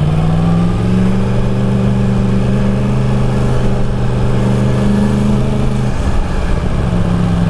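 Yamaha MT-10's crossplane inline-four engine running through an Akrapovic exhaust under a light, steady throttle while riding; the engine note changes about six seconds in.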